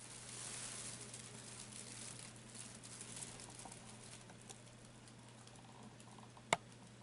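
Soft rustling of a fabric cat play tunnel as a tabby kitten shifts and settles inside it, fading after three or four seconds. One sharp click near the end.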